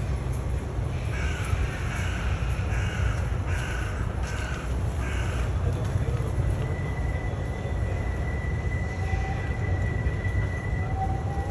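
A crow cawing about six times in a row, the caws evenly spaced and stopping about halfway through, over a steady low rumble.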